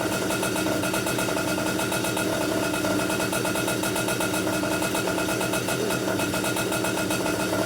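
Komet K30 rotary-valve two-stroke kart engine, built with a stroker crank and a 55 mm bore, running steadily at a constant speed while its new piston is broken in.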